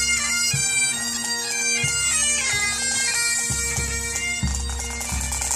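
Pipe band playing: Great Highland bagpipes sound a melody over their steady drones, with a bass drum beating underneath. The drum strokes grow stronger in the second half.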